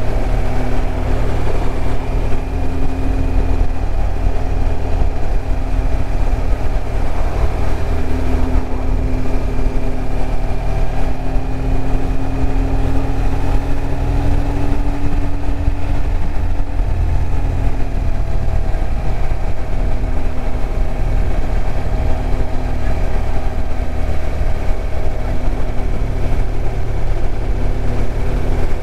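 BMW R1200RT's boxer-twin engine running at steady revs under a continuous low rumble of wind and road noise. The engine note rises slightly and eases off again a little past the middle.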